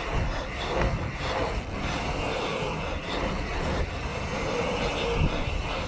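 Mountain bike riding a paved asphalt pump track: steady tyre noise on the asphalt mixed with wind rumbling on the rider-mounted camera.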